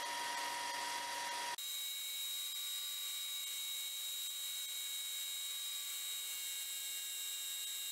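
Bench grinder running while a corroded winch motor armature is held against its wheel to clean the rust off. It is a steady whine with a high ring, and its tone changes abruptly about one and a half seconds in.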